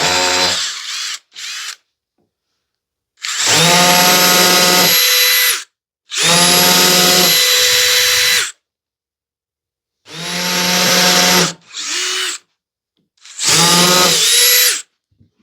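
Power drill pre-drilling holes in the wooden ladder rungs so they won't split. It runs in several separate bursts, most one to two and a half seconds long with full stops between, each a steady motor whine.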